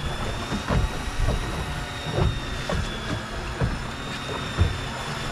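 Electric fishing reel winding line in under load with a steady high whine that wavers slightly, over irregular low slaps of water against the boat's hull.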